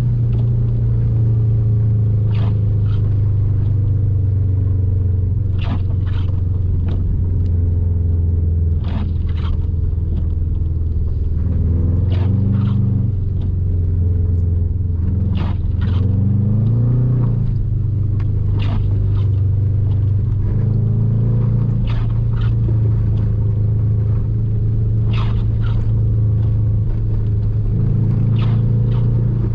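Subaru WRX STI's turbocharged flat-four engine heard from inside the cabin, running steadily at low revs, with the revs rising briefly about 16 seconds in. Many short sharp knocks and clatters come through as the car drives over a rough, snow-covered road.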